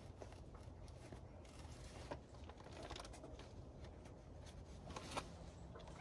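Faint rubbing and rustling of hands pressing a new rubber joystick boot into the base of a CAT 303C CR mini excavator's joystick, with a couple of small clicks.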